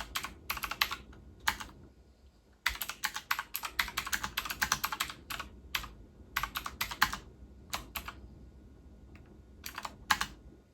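Typing on a wireless mechanical keyboard with clicky blue switches: fast runs of keystrokes in bursts, with a short pause about two seconds in and a sparser stretch near the end.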